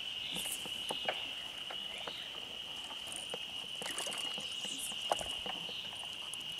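Insects droning at one steady high pitch, with a scattering of faint clicks and light knocks and one sharper tick about five seconds in.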